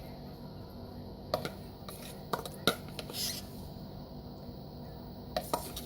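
Soft kitchen handling sounds as grated onion is put onto the food in the pot: several light clicks and taps, and one brief scrape about three seconds in.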